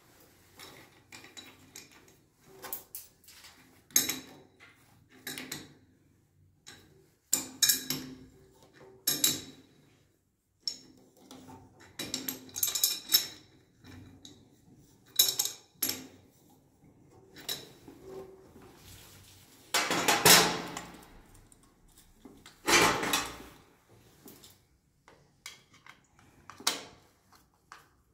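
Irregular metallic clicks, clinks and knocks of chrome angle-valve fittings and a hand tool being handled as the valves and braided flexible hoses are fitted. Two longer, louder stretches of handling noise come about two-thirds of the way through.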